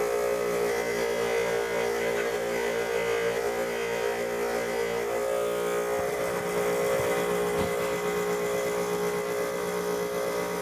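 Electric polishing tool running steadily under load as the carbon steel pan is polished, a constant motor whine made of several steady tones.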